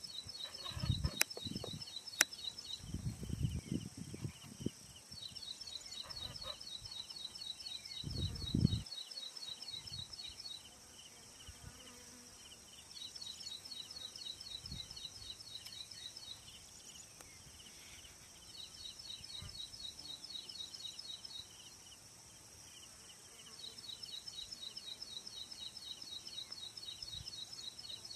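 Ashy prinia singing: five bouts of a rapid, evenly repeated note, each bout a few seconds long with pauses between, over a steady high insect hiss. Low rumbling thumps come in the first nine seconds.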